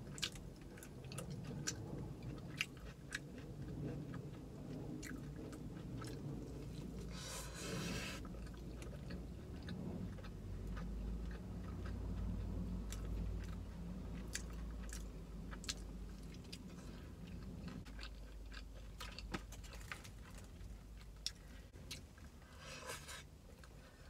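Close-miked chewing of a crispy chicken sandwich, with frequent sharp crunches and mouth clicks. There are two brief rustles, about a third of the way in and near the end.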